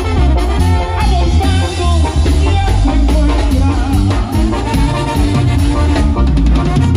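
Background music: a song with drums and a singing voice, with a steady beat.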